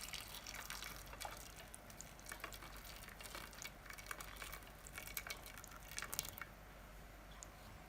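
Faint drips and scattered small ticks of freshly boiled water settling in a bowl with plastic phone front panels submerged in it.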